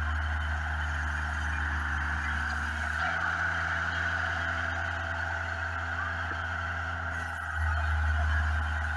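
Homemade portable band sawmill running under load: the engine on the saw head drones steadily while the band blade cuts lengthwise through a log. The drone shifts slightly in pitch and loudness about three seconds in and again near the end.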